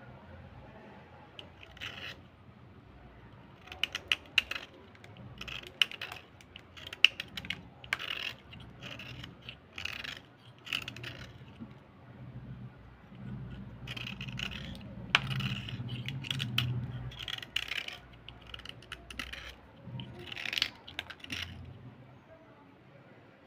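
Hard slate pencil sticks and broken pieces clicking and clattering against each other and the plastic bowl as hands pick through them, with some light scraping. Irregular sharp clicks, with a spell of duller rubbing about two-thirds through.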